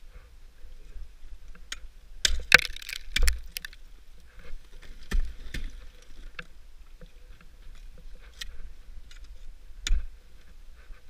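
Ice tools striking brittle frozen-waterfall ice as the climber swings and places them: a string of sharp, irregular impacts, the loudest a cluster with a crunch of shattering ice about two and a half seconds in.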